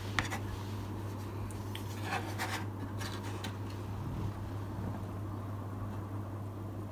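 Faint rubbing and a few light clicks of a painted plastic model truck cab being handled, a couple of them about two to three seconds in, over a steady low hum.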